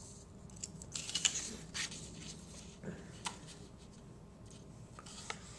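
Sheets of paper being slid and handled: faint rustling with a few light taps, mostly in the first half, and one more tap near the end.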